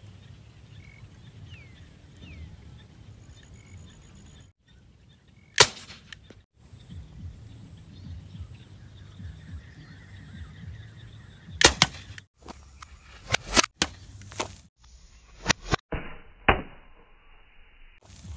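Homemade slingshot air rifle firing: one sharp snap about five seconds in, then a quick cluster of several sharp snaps in the last third, broken up by abrupt cuts, over a faint low rumble.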